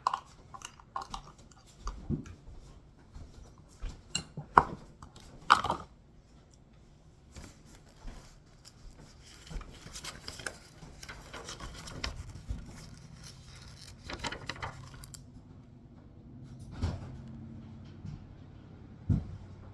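Scattered clinks, clicks and knocks of bowls, containers and utensils being handled, sharpest and busiest in the first few seconds, followed by lighter scraping and rustling.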